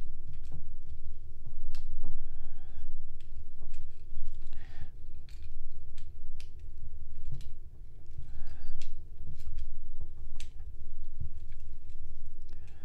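Plastic parts of a Transformers Studio Series Nightbird action figure being handled and snapped together during its transformation: a run of sharp irregular clicks as tabs, pegs and joints engage, with a few brief scrapes of plastic rubbing on plastic, over a low steady rumble.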